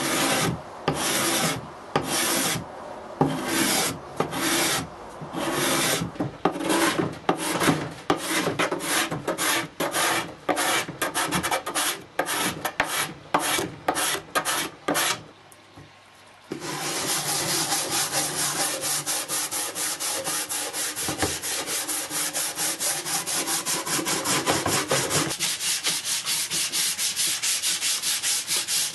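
Steel card scraper pushed in repeated rasping strokes across the old painted wood of a tool chest, the strokes quickening to about three a second. After a brief pause midway, hand sanding of the wooden lid in a quick, steady back-and-forth rhythm.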